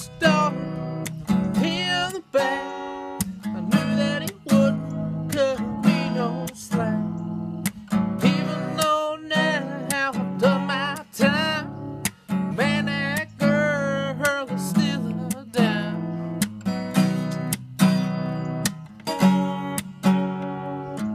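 Acoustic guitar strummed in a steady rhythm, with a man singing along over the chords.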